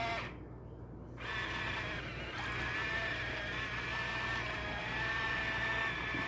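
Steady machine hum with a whining tone that cuts out for about a second near the start, then resumes.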